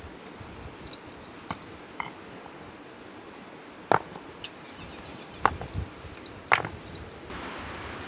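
A handful of sharp clinks and knocks, the loudest about four, five and a half and six and a half seconds in, over a faint steady hiss.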